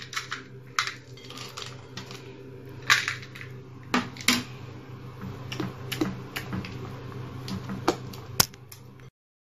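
Irregular light clicks and taps against a glass mixing bowl as chocolate chips are dropped into cake batter and folded in with a silicone spatula, over a low steady hum. The sound cuts off suddenly near the end.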